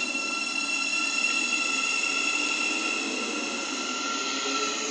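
Thameslink Class 700 electric multiple unit pulling out of the platform, a steady high electric whine from its traction equipment. A lower tone begins to rise in pitch near the end as the train gathers speed.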